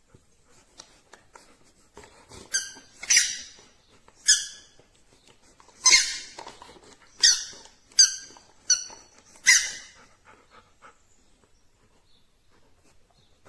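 petizer squeaky dog toy squeaked about eight times in quick, uneven succession: short, high-pitched squeaks.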